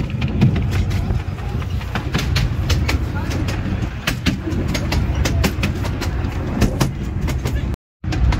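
Miniature railway carriage running along its track: a steady low rumble with a constant irregular clicking and rattling of wheels and coach, briefly cut off near the end.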